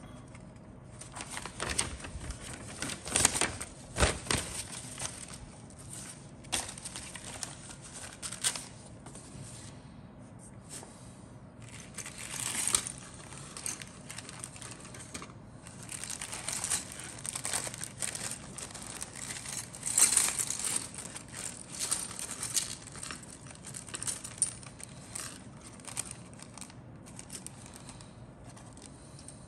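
A clear plastic bag of grey styrene model-kit sprues and parts being handled: irregular crinkling and rustling of the bag, with scattered sharp clicks and taps of the plastic pieces against each other and the cutting mat.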